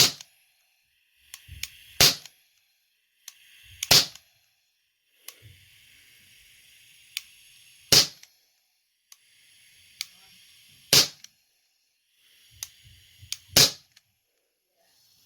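Airsoft pistol firing 6mm BBs: about six sharp pops a few seconds apart, with lighter clicks between the shots.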